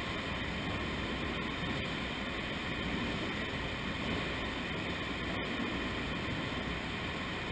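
Steady running noise of sludge-removal machinery, an even mechanical hum and rush without separate knocks or changes.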